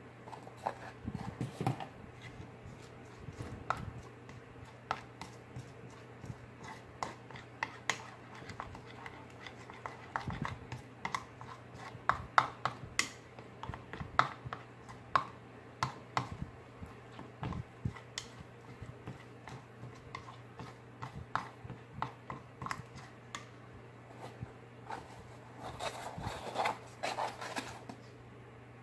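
A plastic spoon stirring baking soda into glue in a plastic bowl, making irregular clicks and taps against the bowl with a stretch of denser scraping near the end, over a steady low hum.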